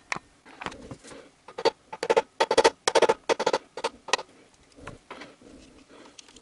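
A hammer tapping repeatedly on a VAZ 2111 engine's connecting rod cap, with its nuts already loosened, to knock the cap free of the crankshaft journal. The taps come thick and fast in the middle and thin out after about four seconds.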